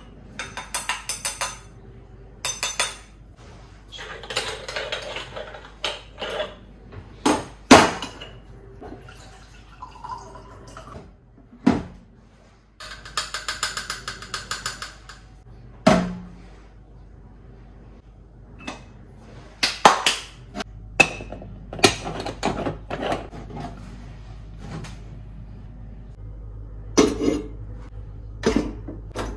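An aluminium moka pot being handled and filled: scattered metal clinks and knocks, several of them sharp, with ground coffee poured into its filter basket midway.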